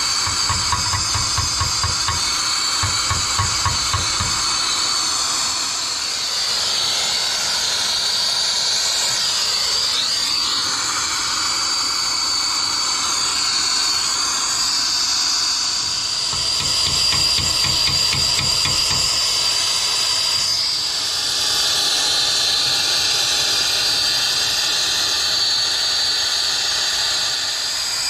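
Brazing torch burning steadily with a hissing flame as it heats a copper refrigerant line joint on a new compressor. A low flutter sounds under the hiss near the start and again past the middle.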